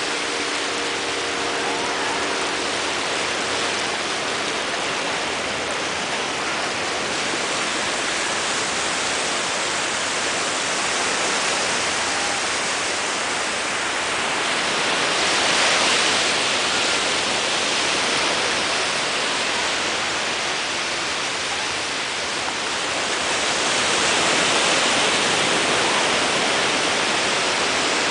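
Small Atlantic surf waves breaking and washing up the beach, a steady rushing hiss that swells louder about halfway through and again near the end.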